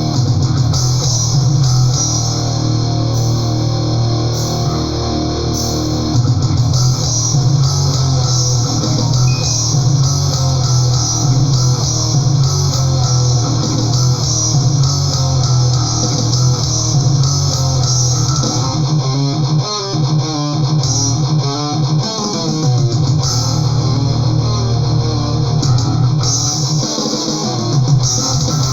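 Death/thrash metal recording with distorted electric guitars and bass guitar. The bass end drops out briefly about two-thirds of the way through, then comes back in.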